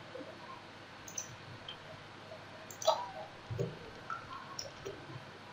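Faint, scattered clicks of a computer keyboard and mouse as a number is typed in, the strongest a little before the middle.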